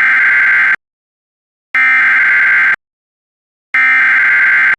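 Three bursts of Emergency Alert System SAME digital data tones: a buzzing, modem-like warble, each burst about a second long with about a second of silence between them. These are the coded data of a broadcast weather alert.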